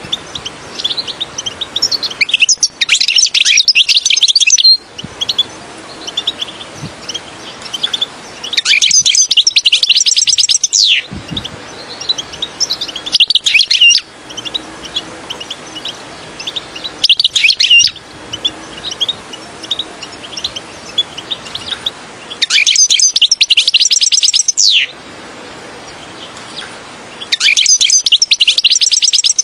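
European goldfinch song: loud bursts of rapid, liquid twittering, each lasting one to two and a half seconds, come about every four to five seconds, with softer scattered chirps in between.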